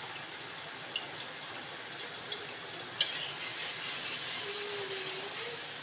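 Chopped ginger sizzling in hot coconut oil in an uruli: a steady hiss with small pops, and a sharp click about three seconds in.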